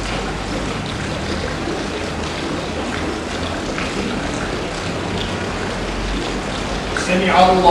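Steady outdoor background noise with a low hum while the congregation holds a silent bow in prayer. About seven seconds in, a man's voice starts chanting a prayer call as the rows rise from the bow.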